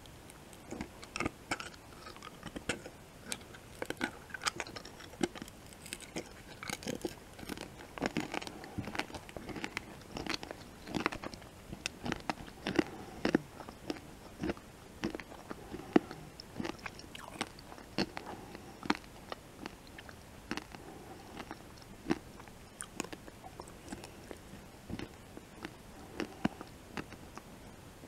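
A sugar-shelled M&M candy being bitten and chewed with the mouth closed: many sharp irregular cracks of the shell breaking, densest in the middle and thinning out near the end.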